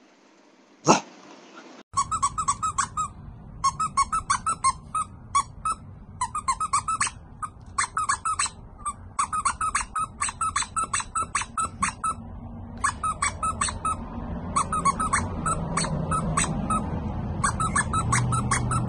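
A sharp click about a second in, then puppies giving rapid runs of short, high, squeaky yips, several a second, broken by brief pauses.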